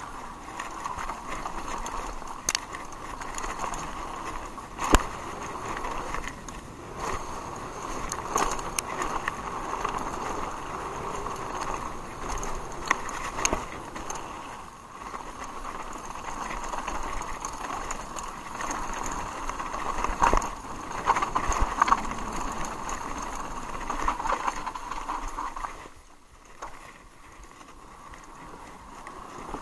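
Haibike Sduro mountain bike rolling fast downhill over a rough forest dirt trail: steady tyre and rattling bike noise with sharp knocks over bumps, the loudest about five seconds in and a cluster a few seconds before the end. It goes quieter for the last few seconds.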